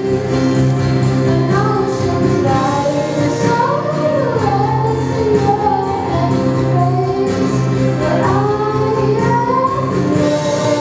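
A girl singing a slow solo into a handheld microphone over musical accompaniment, with long held notes that slide up and down; her phrase ends near the end, leaving the accompaniment playing.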